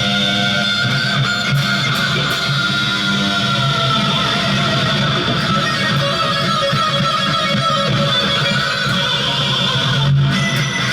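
Guitar music: an electric guitar strummed, its chords ringing on steadily.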